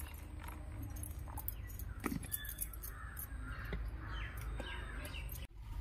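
Crows cawing several times over the second half, over a steady low background. A single sharp knock about two seconds in, from the steel mixing bowl being handled.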